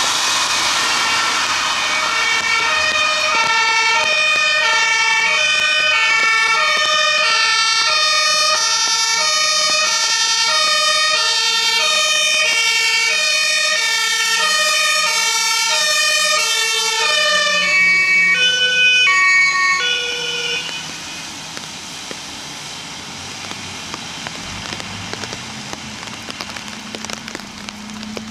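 German two-tone emergency-vehicle siren (Martinshorn), alternating steadily between a low and a high pitch about every three-quarters of a second. Near the end a second siren at different pitches sounds briefly. Both stop about 21 seconds in, leaving tyres hissing on the wet road and an engine running.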